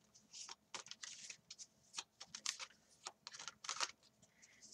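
A deck of tarot cards being shuffled by hand: a quiet string of short, irregular card flicks and taps.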